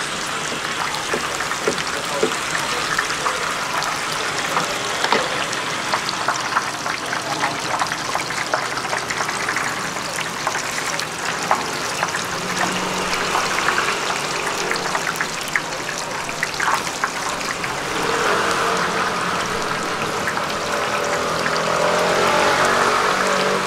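A large wok of oil deep-frying oyster fritters, sizzling steadily with constant small crackles.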